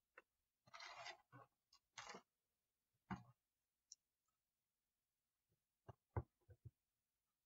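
Small plastic Lego pieces being picked up and pressed together: faint scattered clicks and short rustles, with a quick run of sharper clicks about six seconds in.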